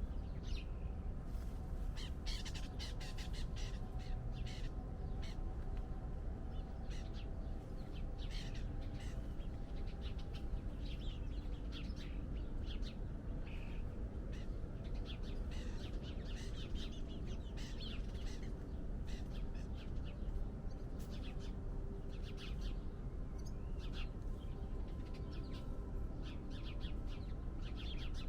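Outdoor birds calling and chirping, many short calls in quick succession throughout, over a steady low rumble.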